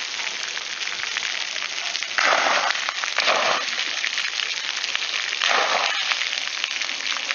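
Water from splash-pad spray jets hissing and splattering on wet concrete, a steady rain-like patter with three louder surges of splashing about two, three and five and a half seconds in.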